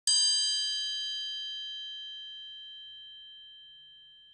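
A single bright bell ding, struck once and ringing down slowly over about four seconds: an edited-in chime sound effect that comes with a "subscribe" banner.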